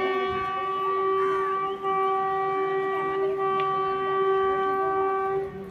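WAG-5 electric locomotive's horn sounding one long, steady blast on a single note, with a brief dip in loudness about two seconds in.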